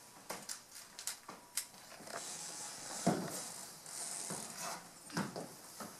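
Sparse soft knocks and rustles of actors moving on a stage, with a faint hiss in the middle.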